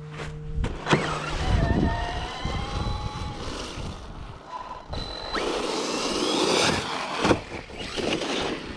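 Brushless electric motor of an Arrma Mojave 4S RC truck whining as the throttle is worked, its pitch gliding up and down, with tyre and ground noise. There is a sharp knock about a second in and another near the end.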